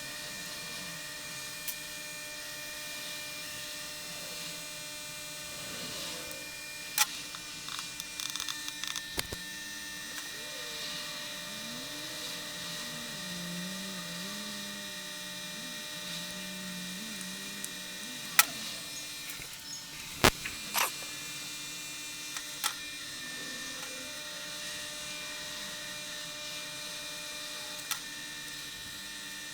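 Steady electrical hum of microsoldering bench equipment, with several fixed tones layered together. A few sharp clicks come near 7 seconds and again around 18 and 20 seconds, and a faint wavering tone rises and falls in the middle.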